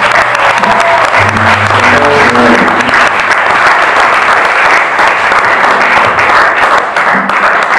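Audience applauding after a rock song ends, with a few stray held notes from the band's electric guitars and bass sounding under the clapping in the first few seconds.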